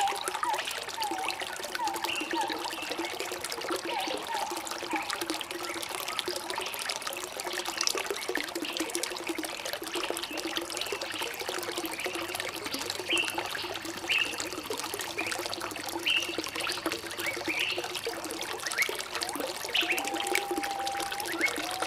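Trickling, flowing water with birds chirping over it: many short calls all the way through, and a few lower whistled notes in the first few seconds and again near the end.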